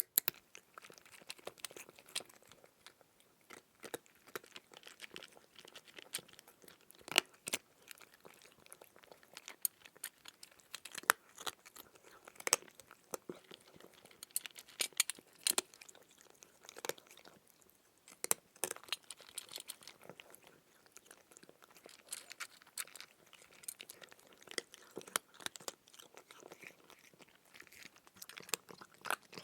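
Crunching and chewing of crunchy food: an eating sound effect made of many irregular sharp crackles and clicks, with no steady rhythm.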